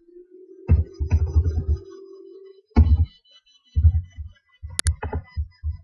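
Music with deep, irregular bass thumps and a held note in the first half, with a few sharp computer keyboard key clicks near the end.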